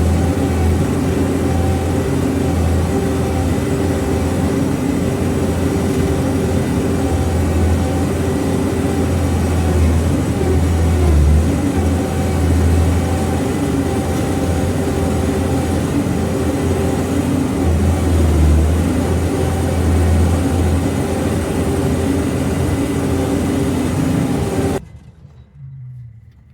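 Diesel engine of a piece of earthmoving equipment running steadily, with a strong low drone and a steady hum that swell and ease a little with load. It cuts off abruptly near the end.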